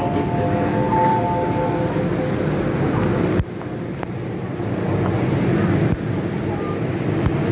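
Busy noise of passengers boarding a crowded metro train: chatter over a steady low rumble, with a few steady electronic tones held for about two seconds at the start. The noise drops suddenly about three and a half seconds in.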